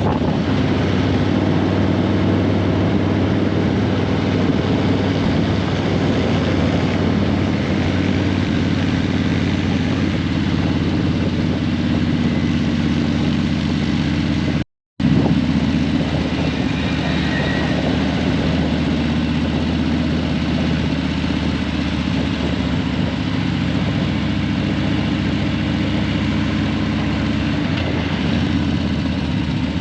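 Harley-Davidson Breakout 117's Milwaukee-Eight 117 V-twin running steadily through Vance & Hines Eliminator 300 slip-on mufflers. The sound cuts out completely for a moment about halfway through.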